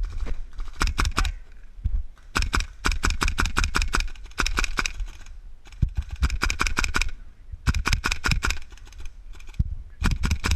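Airsoft rifle firing in rapid strings of shots, about six bursts of fast cracks with short pauses between them.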